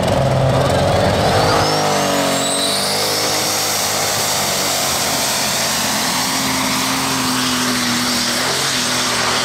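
Pulling tractor's engine running hard at full throttle during a pull. A high whine climbs over the first three seconds, then holds steady under the continuous engine noise.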